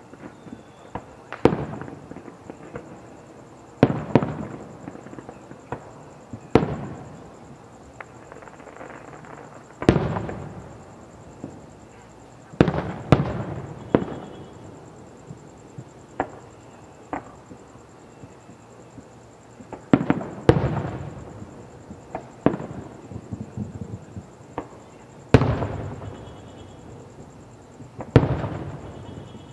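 Fireworks bursting one after another, a sharp bang every one to three seconds, each trailing off in a rumbling echo.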